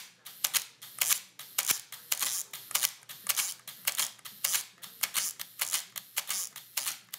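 Optika Auto 35 rangefinder firing over and over on its spring-wound Optika grip motor, about two frames a second. Each cycle is a sharp mechanical click as the shutter releases and the motor advances the film and re-cocks the shutter.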